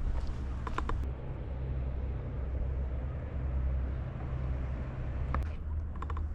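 Steady low mechanical rumble of a large machine running, with faint clicks and distant voices in the first second and again near the end.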